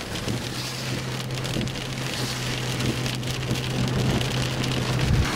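Rain falling on a car's windshield and body, heard from inside the cabin as a steady hiss with scattered light taps, over a steady low hum from the vehicle.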